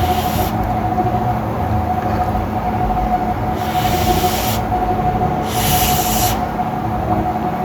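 Kitchen cooking noise while frying noodles: a steady hum with a constant mid-pitched tone over a low rumble, broken twice by a brief burst of sizzling hiss.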